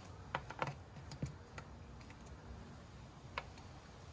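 Several light clicks and taps of a tool against plastic push pins on an underbody panel, in the first two seconds, then one more near the end.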